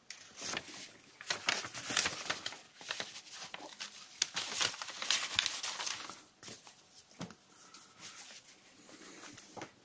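Paper rustling and crackling as the large fold-out schematic sheet of an old paper instruction manual is folded up and its pages turned, busiest for the first six seconds, then quieter handling as the booklet is laid down.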